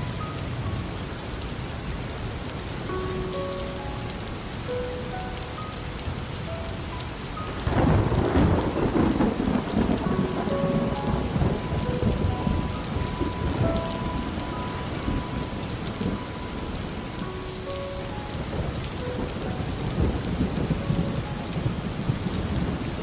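Steady rain falling, with a roll of thunder rumbling in about eight seconds in and slowly dying away over the following several seconds.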